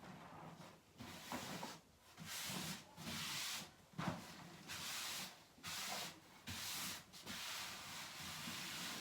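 Repeated rubbing strokes of a smoothing tool drawn over glass-fibre wallcovering to press it flat into the glue, about one stroke a second.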